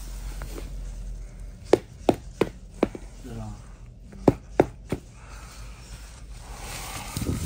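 Boots knocked against a concrete floor: four sharp knocks, then three more a moment later, with some rustling of the tent fabric.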